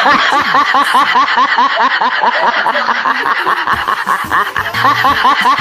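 Snickering laughter, a continuous run of quick 'heh-heh' laugh pulses, several a second.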